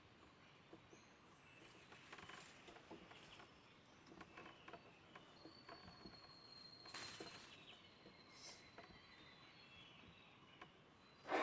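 Near silence: faint outdoor ambience with scattered small rustles and ticks, and a thin, steady high tone for about five seconds midway.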